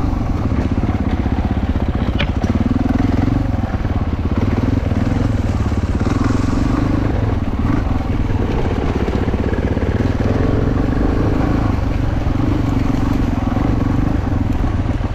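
Single-cylinder four-stroke KTM 450 enduro dirt bike engine running at trail speed, the throttle easing off and picking up again now and then.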